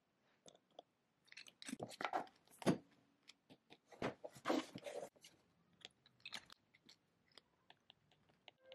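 Faint, irregular crunching and chewing of candy-coated chocolate eggs, mixed with scattered small clicks.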